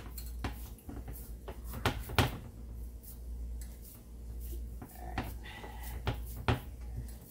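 Hands shaping and pressing raw ground-beef meatloaf mix into a baking dish, with scattered soft taps and knocks against the dish, the sharpest about two seconds in and near the end, over a steady low hum.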